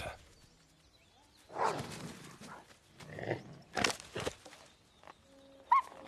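Several grey wolves moving about on dry leaf litter: scattered bursts of rustling and scuffing, and one short high whine from a wolf near the end.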